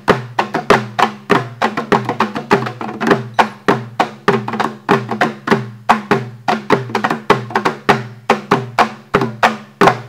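Rope-laced barrel drums played fast in an even rhythm, about four or five strokes a second, each stroke with a short low ring.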